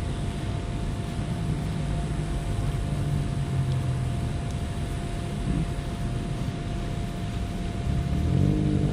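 Steady rushing noise of a swimmer doing a lap in a pool, with a faint constant hum. Near the end a rising whine begins.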